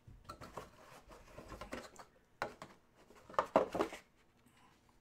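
Cards and a cardboard trading-card box being handled: light rustling, scraping and small clicks, with a cluster of louder taps about three and a half seconds in.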